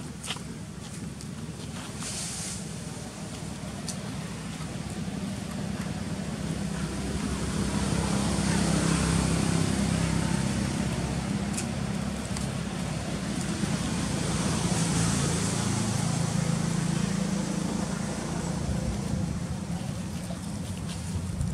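A motor vehicle's engine hum with road noise, swelling over several seconds, staying loud for about ten seconds, then easing off as it passes.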